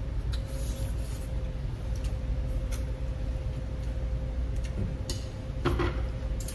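Table and room sounds of a meal in a restaurant: a steady low rumble with a faint constant hum, a few small clicks from handling food, and a short clink of tableware about six seconds in.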